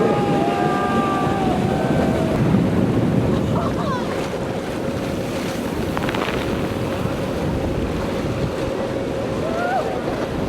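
Ocean surf and wind buffeting the microphone in a steady loud rush, with a faint steady hum from about four seconds in. Faint calls or voices rise and fall near the start.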